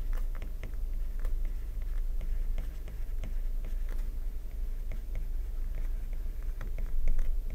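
Stylus tapping and scratching on a tablet's glass screen while a sentence is handwritten: a string of light, irregular clicks over a steady low hum.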